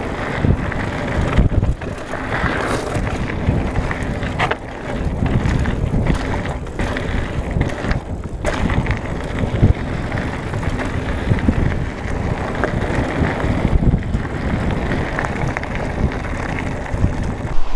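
Mountain bike ridden fast over a loose gravel trail: the tyres crunch and the bike rattles continuously, with many sharp knocks and clatters as it runs over stones.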